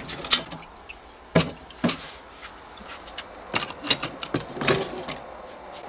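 Liquid splashing and dripping as an old metal kitchen scale frame is lifted out of a soaking bath, followed by several separate sharp knocks of the wet metal frame against a plastic tub.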